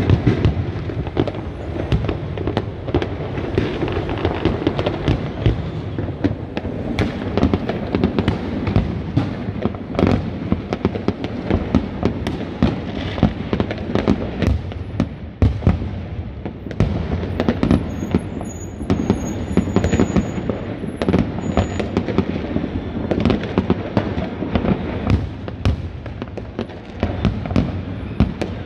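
Aerial fireworks display: a dense, continuous run of sharp bangs from bursting shells over a steady rumble of overlapping explosions.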